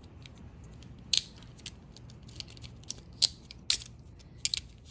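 Steel handcuffs being worked by hand: irregular sharp metallic clicks and clinks from the cuff mechanism and chain, the loudest about a second in and twice past the three-second mark.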